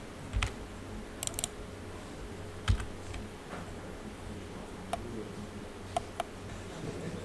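Scattered clicks of a computer keyboard and mouse being used, a handful of separate taps one to two seconds apart with a quick run of three about a second in, over a low steady hum.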